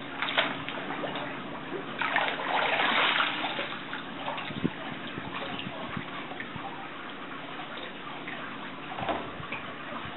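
Swim fins kicking and splashing in pool water: a short splash at the start, a louder splashing burst about two seconds in lasting about a second, then smaller sloshes.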